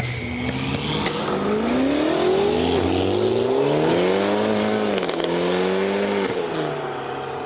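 Single-turbo BMW M3 G81 Touring's straight-six engine accelerating hard. Its pitch climbs, dips briefly about three seconds in, climbs again to a high steady pitch, and drops off about six seconds in.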